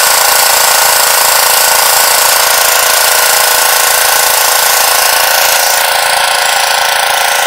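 Pressure washer running steadily, its wand spraying a water jet onto a carpet floor mat and wet concrete: a loud, even hiss throughout.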